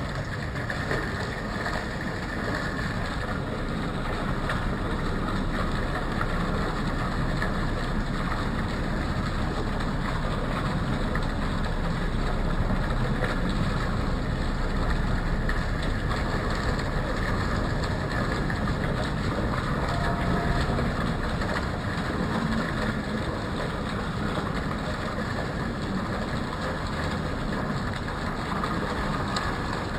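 Steady rumble and hiss of city traffic, even throughout.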